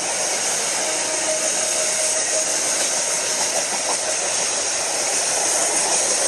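Canadian National freight train rolling past, a steady rumble and hiss of steel wheels on the rails.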